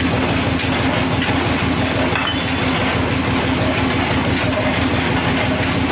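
Large vertical band saw running steadily: a constant mechanical drone with a fast, even rattle.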